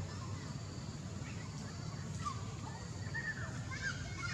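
Short high chirping animal calls, a few about two seconds in and a quicker cluster near the end, over a steady low background rumble.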